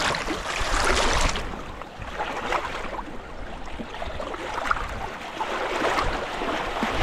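Small wind-driven waves lapping and splashing over the rocks at a loch shore, loudest in the first second or so, with wind rumbling on the microphone.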